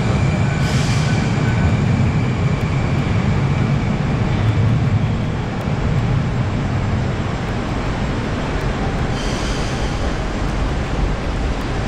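Moscow metro train running, a steady low rumble with two short hisses, one about a second in and one near the end.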